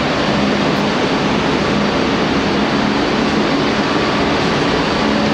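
Loud, steady mechanical drone of industrial plant in a steel mill building, with a constant low hum under it.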